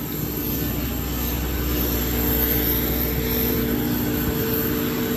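Jet aircraft noise on an airport apron: a steady drone with a high, even whine, growing louder over the first two seconds and then holding.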